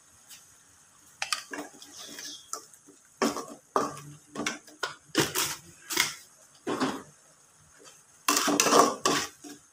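Metal spoon and spatula clinking and scraping against a metal wok as seasoning is added and a simmering chili paste is stirred. Irregular scrapes and knocks start about a second in, pause briefly about two thirds through, then come in a quick run of stirring near the end.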